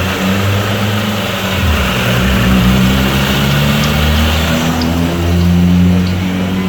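Mercedes-Benz E200 Kompressor engine idling steadily with the newly installed A/C compressor running, a low hum over a rushing of air.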